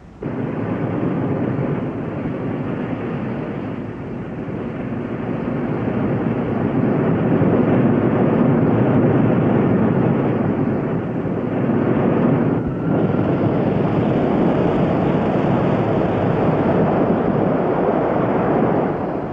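Rocket sled at speed on a test track: a loud, even rushing noise that starts abruptly, breaks off for a moment about 13 seconds in, then resumes and fades out near the end.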